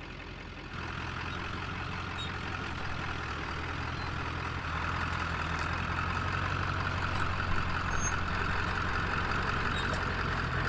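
Ford F-350 diesel pickup engine running at low revs, growing louder in steps a little under a second in and again about halfway through.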